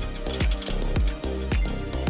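Background music with a steady kick-drum beat.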